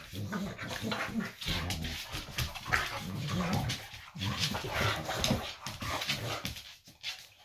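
Two boxer dogs play-fighting, growling and grumbling at each other almost without pause, dying down near the end.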